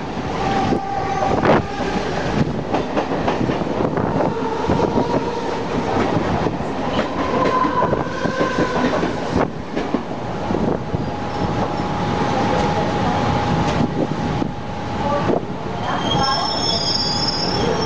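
Mumbai suburban local electric train running: a steady roar of wheels on rails, with another train passing close alongside. Thin wheel squeals come and go, and higher-pitched squeals start near the end.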